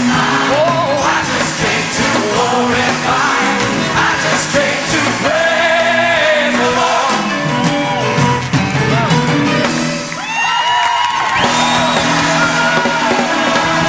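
Live gospel music from a church band, with voices singing over it; high sliding notes rise out of it about ten seconds in.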